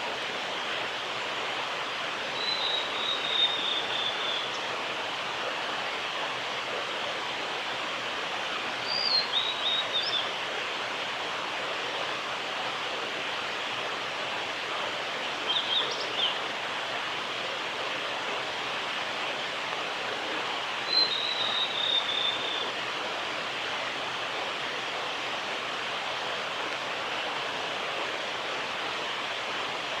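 Male blue-and-white flycatcher singing: four short, high song phrases, several seconds apart, over a steady rushing background noise.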